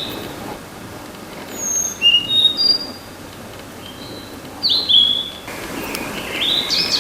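Blue-and-white flycatcher singing: clear, high whistled notes in two short phrases, then a quicker run of stepping notes near the end.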